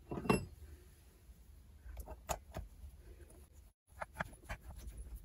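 Light clicks and small taps of a screw and screwdriver as the bottom screw of a chainsaw's ignition coil is fitted. There is a short knock at the start, then scattered clicks about two seconds in and again near the end.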